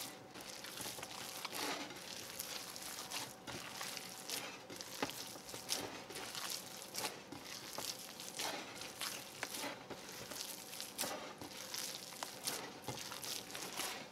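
Hand squishing, folding and turning raw meatloaf mixture of ground meat and ketchup in a bowl: irregular squishing strokes, fairly quiet.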